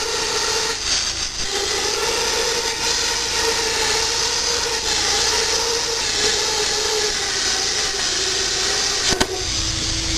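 Lotos Cut40D air plasma cutter cutting through thick schedule 80 pipe: a loud, steady hiss of air with a steady hum from the arc. About nine seconds in the arc cuts off with a click, leaving a steady hiss.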